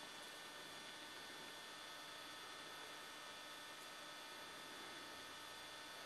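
Faint steady hiss with a constant electrical hum and whine, unchanging throughout; no distinct sounds stand out.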